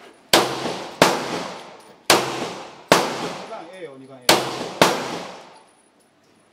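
Pistol fired six times at an uneven pace, each shot a sharp crack followed by a ringing tail.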